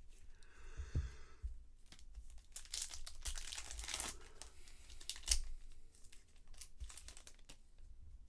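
A trading card pack's wrapper being torn open and crinkled: a rasping rip about a second in, then a stretch of dense crinkling, with scattered ticks and one sharp click a little past five seconds.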